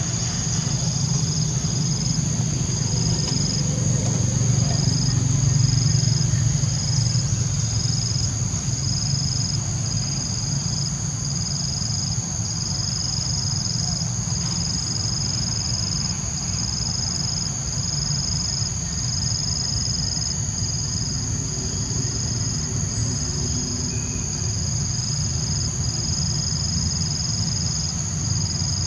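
Insect chorus in jungle: a steady high trill with a second trill beneath it that pulses on and off about once a second. Under it runs a steady low rumble.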